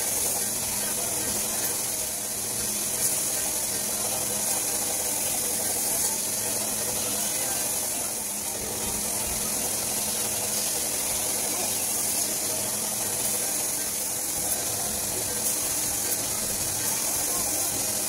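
Belt grinder running with a Böhler N695 steel knife blade held against the abrasive belt: a steady grinding hiss over the hum of the motor, with a few faint ticks.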